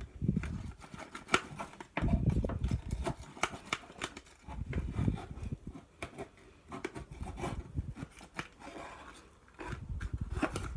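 Wooden stick stirring glue, baking soda and lens fluid into slime in a plastic margarine tub: irregular clicks and scrapes of the stick against the plastic, with a few dull bumps from the tub being handled.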